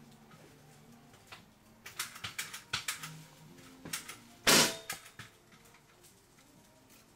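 Several sharp clicks and taps, then one loud, short burst of noise about four and a half seconds in that fades within about half a second: a magician's fire snowstorm cannon prop being handled and fired.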